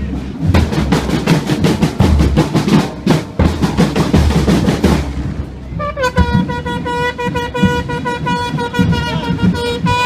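Drums and cymbals of a street marching band beating for about five seconds. About six seconds in, a long, steady horn blast sets in over the drumming and holds for about four seconds before cutting off.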